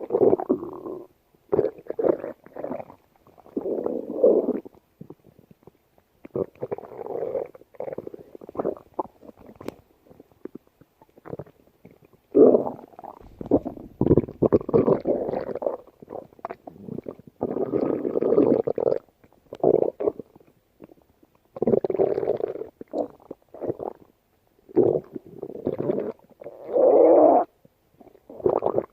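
A hungry person's stomach growling in many irregular bouts, each lasting a second or two, with short quiet gaps between them.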